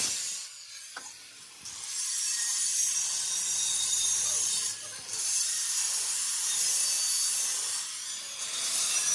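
Angle grinder with an abrasive disc grinding a steel tractor wheel rim as the rim turns on a lathe: a steady high hissing grind. It drops away about half a second in, picks up again at a little under two seconds, and lets off briefly twice more, near the middle and near the end.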